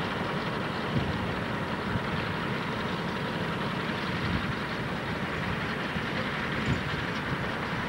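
Single-engine floatplane's piston engine running at low power as the plane taxis on the water, a steady rumble with uneven low buffeting.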